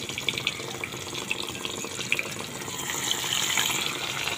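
A piece of masala-marinated fish deep-frying in hot oil in a wok, sizzling steadily with quick crackles, a little louder near the end.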